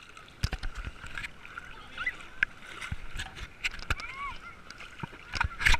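Knocks and water sloshing against a hand-held action camera in shallow water, with a louder cluster of knocks near the end. Short faint distant cries sound over a steady background hiss.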